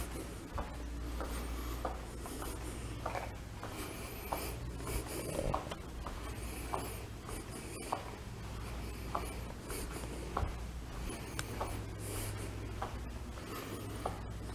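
Footsteps of a person walking on carpet at an even pace, a little under two steps a second, with a steady low hum and the rubbing of a hand-held camera.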